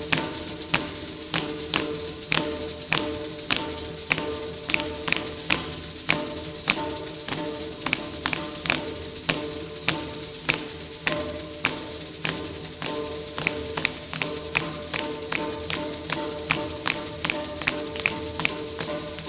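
Kathak dance music: ankle bells (ghungroo) jingling continuously, with sharp rhythmic strikes about three a second over steady held drone notes.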